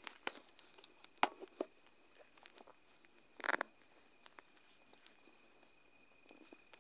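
Steady trilling of night insects, crickets among them, with scattered clicks and rustles of footsteps moving through tall grass; a louder rustle comes about three and a half seconds in.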